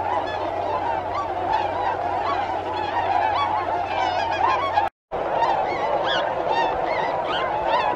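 A flock of swans calling in flight: many overlapping honking calls at once. The sound drops out for a moment about five seconds in.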